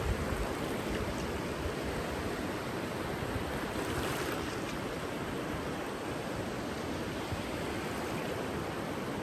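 Steady rush of ocean surf, with an irregular low rumble underneath.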